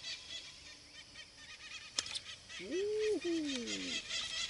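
A goose honking about halfway through: one arching call and then a falling one. Dense, rapid high chirping runs underneath from then on, and a sharp click comes just before the honks.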